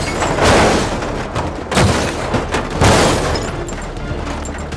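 Background music with three heavy booming impacts about a second apart, each ringing out. These are cartoon crash effects of a vehicle tumbling down into a pit.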